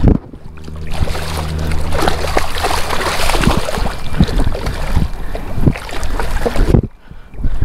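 Wind rushing over the microphone, with scattered knocks and scrapes of handling. The wind drops off sharply for a moment near the end.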